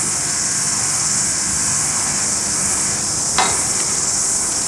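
Indesit washing machine running with its covers off: a steady hiss over a low hum from the motor and the churning, foaming water in the drum. One brief sharp sound stands out about three and a half seconds in.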